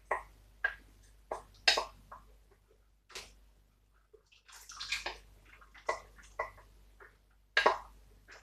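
Water splashing and sloshing in a bowl as peanut butter is rinsed out of it, in short irregular splashes with a quieter pause a few seconds in.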